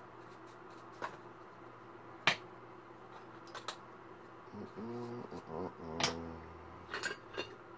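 Scattered sharp clicks and taps of painting tools knocking against a palette or jar, the loudest a little over two seconds in. A short low pitched sound of a second or so comes in about halfway through.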